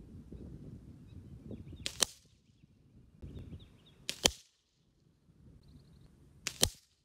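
Three sharp cracks from a .177 Benjamin Trail NP Mark II nitro-piston break-barrel air rifle being fired, about two seconds apart, each preceded by a low rumble.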